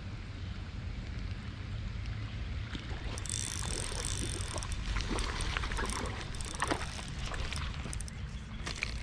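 Wind rumbling on the microphone. From about three seconds in, a run of short clicks and crackles with a hiss over it.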